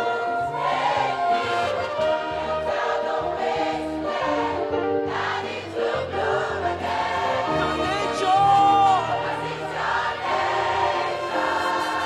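Large mixed youth choir singing a gospel song in full harmony, with orchestral accompaniment that includes bowed violins and a steady bass line.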